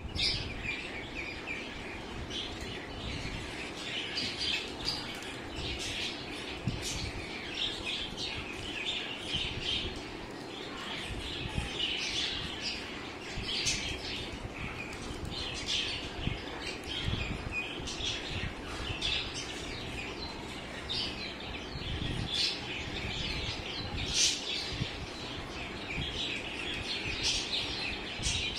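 A flock of Khaki Campbell ducklings peeping continuously, many high calls overlapping, with low scuffling and thumps from the birds moving around.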